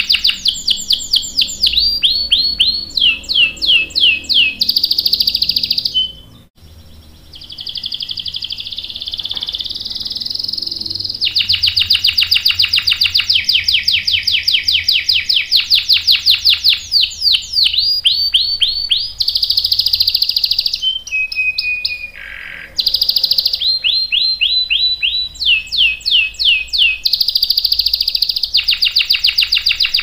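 Domestic canary singing long rolling trills of rapid repeated high notes, some sweeping downward, with short breaks about six seconds in and again about two-thirds of the way through.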